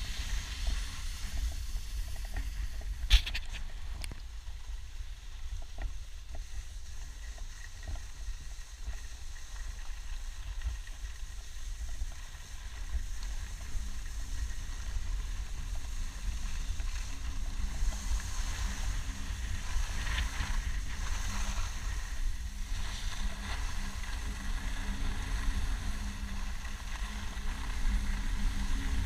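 Wind buffeting the camera's microphone during a ski run, a steady low rumble with the hiss of skis sliding on packed snow, louder at times. A single sharp click about three seconds in.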